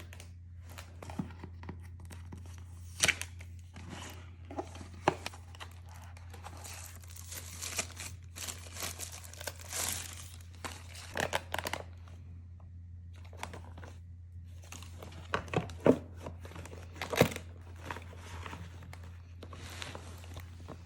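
Plastic packaging crinkling and rustling as items are unpacked, with a few sharp knocks and clicks from handling the parts.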